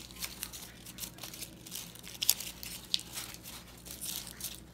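Brown paper bag strips being twisted by hand, crinkling and rustling irregularly, with two sharper crackles a little past halfway.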